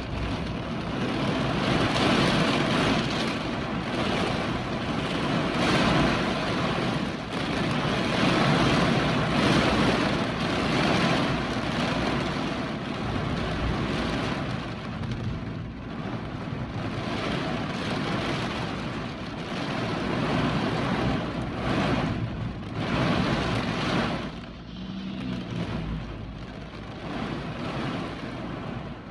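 Hurricane wind gusting with rain, buffeting the microphone, the roar swelling and easing every couple of seconds.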